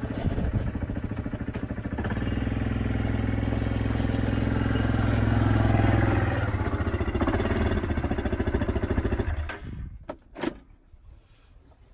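Yamaha ATV engine running as the four-wheeler is driven up a ramp onto a trailer, working harder partway through. The engine stops suddenly about nine and a half seconds in, and a couple of short knocks follow.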